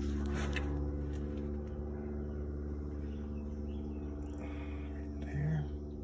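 Steady low machine hum with several even tones that hold unchanged throughout.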